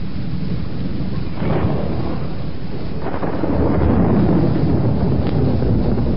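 A loud, steady rumbling rush of noise without speech or singing, swelling about three seconds in.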